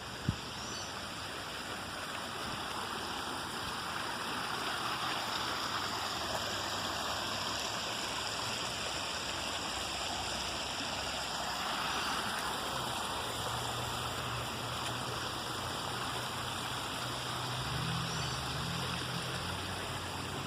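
Water rushing steadily over a small cascade or stream. There is one sharp click just after the start, and a faint low hum comes in during the second half.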